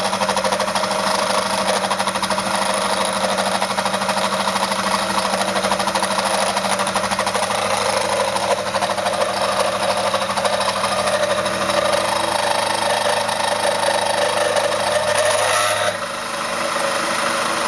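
CNC milling machine running with a 3/8-inch four-flute ball endmill spinning: a loud, steady mechanical drone. It dips briefly and changes about sixteen seconds in, then carries on.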